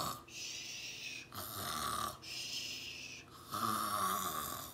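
A woman imitating snoring with her voice: three drawn-out snores, each followed by a breathy, hissing exhale.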